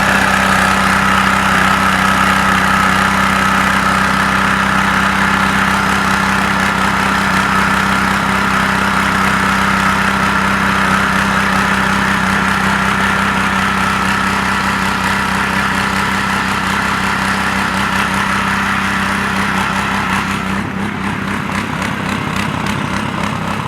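Small petrol engine of an MRS BK rail-drilling machine running steadily at speed, with a high steady whine over it. About twenty seconds in, the whine stops and the sound drops a little.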